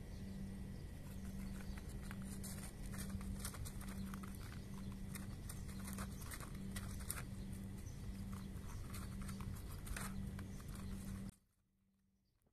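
Cats crunching dry kibble: many small, irregular crunches over a steady low hum. The sound cuts off abruptly near the end.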